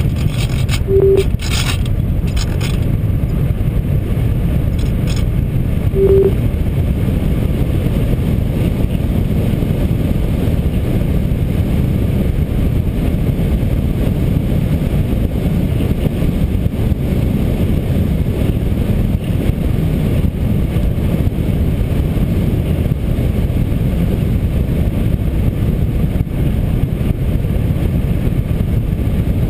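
Steady wind rushing over a GoPro camera riding on a ParkZone Radian electric glider in flight, a low rumbling buffet with no motor tone. Two short beeps sound, about a second in and again about six seconds in.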